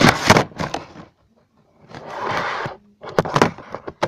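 Handling noise from a laptop being moved and tilted close to its built-in microphone: a cluster of knocks and taps, a brief rubbing noise about two seconds in, then more knocks.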